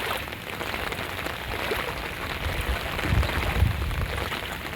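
Steady rain and water sloshing as someone wades through ankle-deep floodwater, with a brief low rumble about three seconds in.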